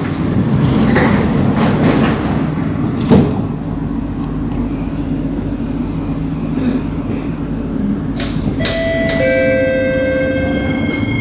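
Singapore MRT train's sliding doors shutting, with a sharp knock about three seconds in as they meet, over the low rumble of the train. Near the end, steady electric whine tones set in as the train begins to pull away.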